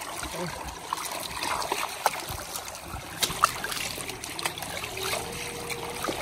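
Shallow water trickling over muddy ground, with small splashes as a hand moves through it.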